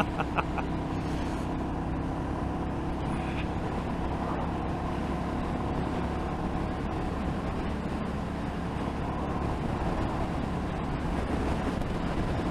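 Motorcycle engine running steadily at cruising speed, under a constant rush of wind and road noise.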